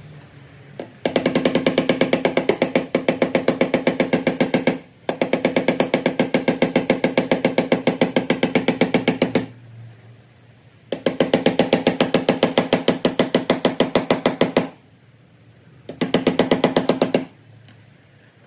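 Fiat Panda's starter motor cranking the engine in four attempts, three long and one short, with a fast even chug. The engine never catches: a no-start.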